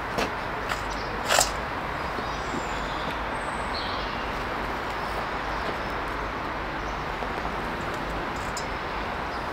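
Gas-fired melting furnace burner running with a steady rushing noise, with a few sharp clicks in the first second and a half, the loudest about a second and a half in.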